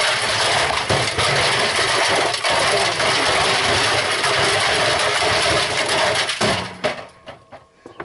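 LG front-loading washing machine running with a brick and rocks loose in its drum: a loud, continuous rattling and banging of stone against the steel drum that cuts off about six and a half seconds in, leaving a few separate knocks.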